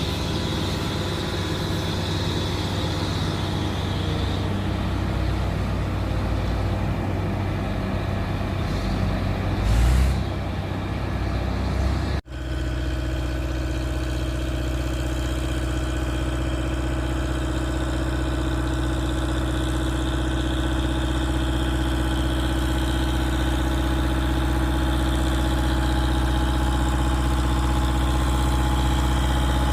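Fiat Agri 70-90 DT tractor's diesel engine working hard under load, pulling a loaded grain trailer up a steep slope. There is a brief loud low thump about ten seconds in and a sudden momentary dropout a couple of seconds later. After that the engine note holds steady and grows gradually louder.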